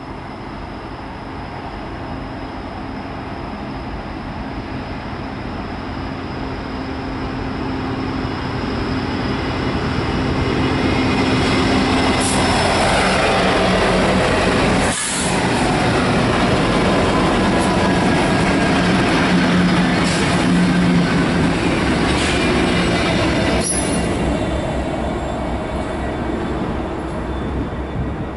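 Seven diesel-electric locomotives running light with no cars, among them freshly rebuilt SD70ACU and AC44C6M units, approach, pass close by and move away, their engines running steadily over the sound of wheels on rail. The sound builds gradually, stays loud while the units go by, and fades near the end.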